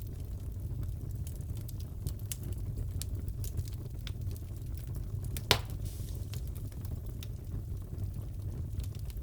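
Crackling fireplace: a steady low rumble of the burning fire with scattered small crackles and one loud pop about five and a half seconds in.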